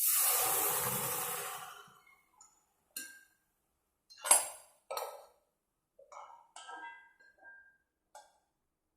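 Boiled green peas with their cooking water tipped into a hot pan of fried onions and spice powders: a loud sizzling hiss that fades over about two seconds. It is followed by several clinks of a spoon against the metal pan, a few of them ringing briefly.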